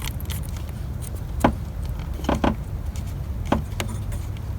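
A few light, sharp plastic-and-metal clicks and knocks as a plastic fitting is pushed into place on the new starter's wiring, without a clear snap of it latching home. A steady low rumble sits underneath.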